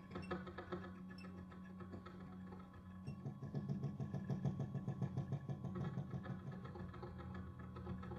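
String trio of violin, cello and double bass with live electronics playing a contemporary piece: a steady low hum under a fast, even, machine-like pulsing that swells about three seconds in and eases back near six seconds.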